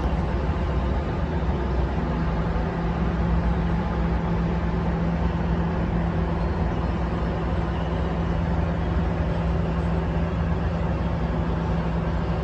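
Steady rumble of road traffic on a bridge, with no single vehicle standing out. About two seconds in, a steady low engine drone joins it and holds.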